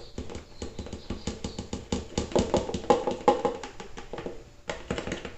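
Rapid, irregular clicking and tapping of a utensil against a mixing bowl as chocolate cake batter is stirred by hand, with a brief ringing from the bowl in the middle.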